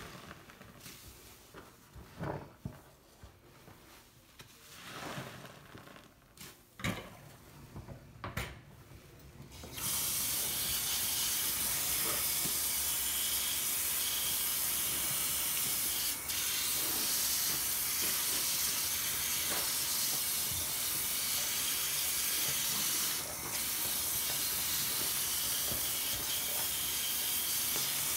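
A large foam sponge squished and squeezed in soapy suds in a sink, a few separate wet squelches. About ten seconds in, the tap is turned on and water runs steadily onto the sponge, rinsing it.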